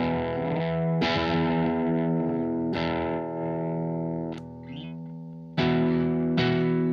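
Electric guitar played through a Blackstar ID:Core Stereo 40 amplifier with a distorted tone. Chords are struck and left to ring, fading down about four and a half seconds in, then fresh chords come in near the end.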